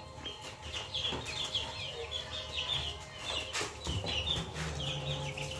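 A brood of young chicks peeping: a steady stream of short, high chirps from many birds at once.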